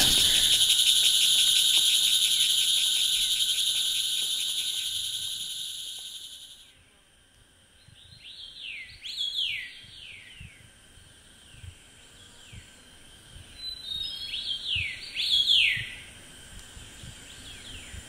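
A steady, high-pitched insect chorus that fades out over the first six seconds. After a moment of near silence, birds call in short, falling whistled notes in two clusters.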